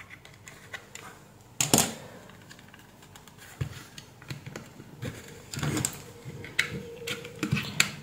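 Screwdriver prying at the seam of a press-fit plastic power bank case: scattered clicks and scrapes of metal tip and plastic, with one sharp click about two seconds in and a cluster of clicks later on.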